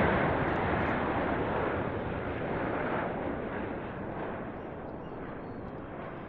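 Jet noise of a Dassault Rafale C fighter's twin Snecma M88 turbofans on a low pass, loudest at the start and fading steadily as the jet flies away.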